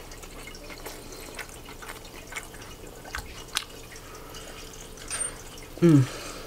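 Close, wet chewing and mouth clicks from eating a bison burger, with a short falling hum from the eater about six seconds in.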